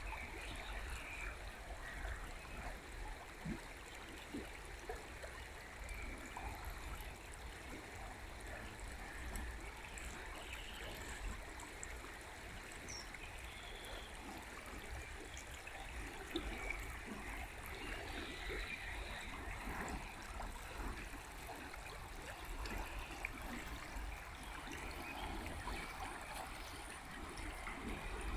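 A river flowing steadily, a continuous rush of water with a light babble.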